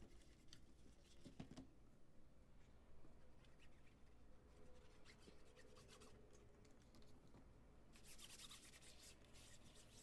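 Faint rubbing and scratching of a cloth wiping the textured plastic underside of a laptop, with a few light handling ticks and a brief louder stretch of rubbing about eight seconds in.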